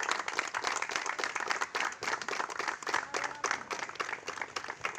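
A small group of people clapping their hands, a continuous patter of many overlapping claps.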